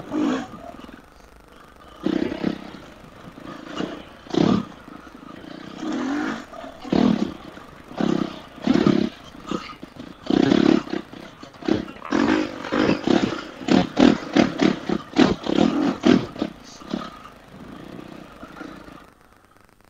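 Dirt bike's single-cylinder four-stroke engine revving in repeated throttle bursts while riding, the bursts coming quicker in the second half, then dying down near the end.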